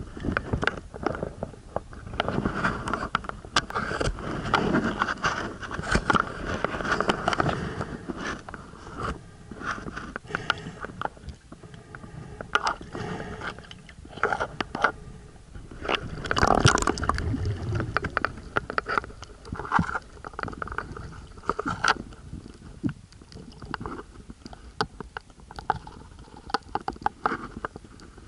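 Muffled underwater noise picked up by a submerged camera: irregular clicks, crackles and scraping from water movement and handling against the housing, over a low rumble. It is loudest for several seconds near the start and again briefly past the middle.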